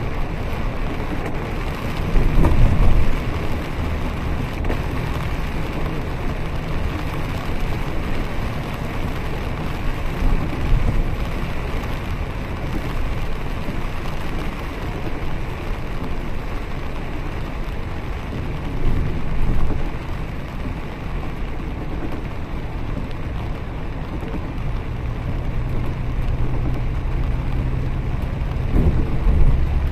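A bus driving on a wet road in heavy rain, heard from inside: a steady mix of engine, tyre and rain noise. There are two louder jolts, about two seconds in and again near twenty seconds, and the engine hum grows stronger near the end.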